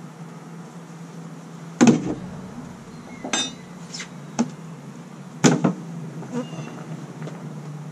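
Metal hive tool prying the top cover of a wooden beehive loose, with several sharp cracks and knocks; the loudest come about two seconds in and again about five and a half seconds in. A steady low hum of bees runs underneath.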